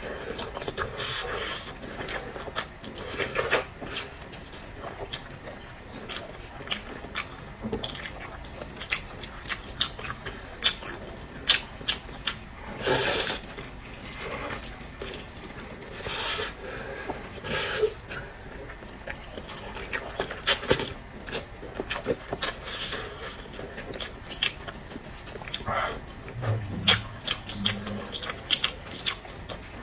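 Close-miked chewing and mouth smacking while eating, a dense run of short wet clicks with a few longer squelching bursts.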